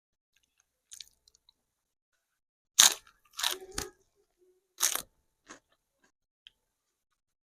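A person biting into and chewing crunchy food, about six sharp crunches, the loudest about three seconds in.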